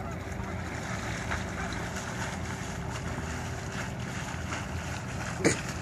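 Wind rumbling on the microphone over lakeside ambience, with faint splashing from a swimmer's front-crawl arm strokes. A short, loud call sounds once near the end.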